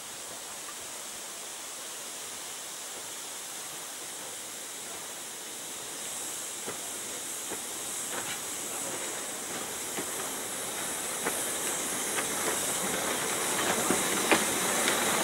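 Narrow-gauge steam locomotive coming closer and passing, with a steady hiss of steam that grows louder. From about six seconds in, sharp clicks from the wheels and running gear on the rails come more often and louder toward the end.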